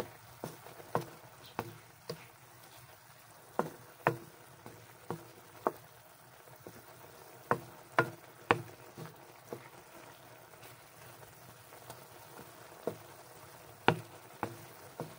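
Wooden spatula knocking and scraping against a wok while stir-frying chicken, tofu and broccoli, in irregular sharp clicks with a lull in the middle, over a faint simmer of the sauce.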